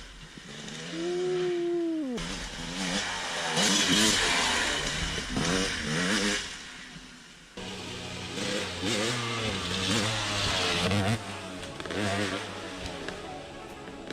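Dirt bike engine revving up and down across several edited riding clips, the pitch rising and falling as the rider works the throttle over the jumps.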